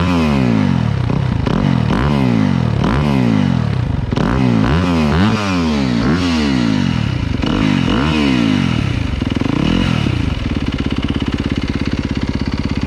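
Yamaha YZ250FX single-cylinder four-stroke dirt bike engine, breathing through a newly fitted Akrapovic exhaust, revved in quick throttle blips that climb and drop back about once a second, then settling into a steady idle about ten seconds in.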